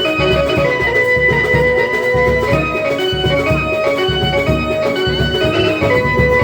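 Indian band baja ensemble playing a melody in long held notes over a drum beat.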